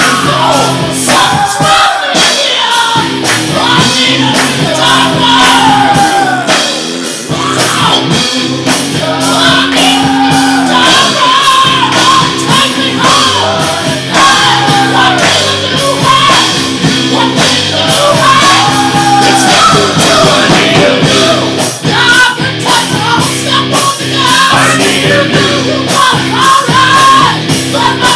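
Hard rock song playing loudly, with sung and shouted vocals over a full band with drums.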